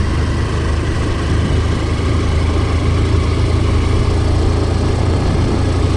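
A vehicle engine running at a steady, unchanging pitch: a constant low drone with an even noise on top, as heard while travelling.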